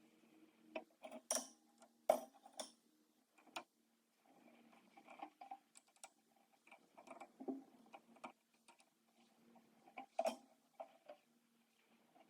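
Scattered metallic clinks and taps of hand tools and metal parts being handled, the sharpest about a second and two seconds in and again near ten seconds, over a faint steady hum.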